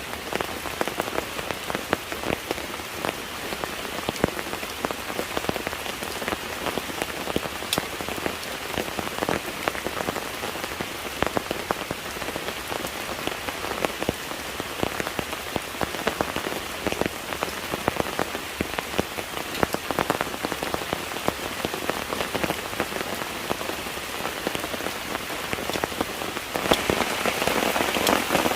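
Steady rain falling, a dense patter of individual drops striking a surface, growing heavier and louder near the end.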